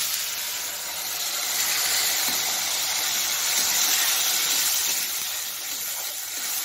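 Ginger, chilli and tomato paste hitting hot oil and frying potato cubes in a kadai, setting off a loud, steady sizzle that starts suddenly.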